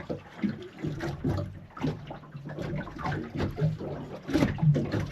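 Water splashing with a run of irregular knocks and handling noises.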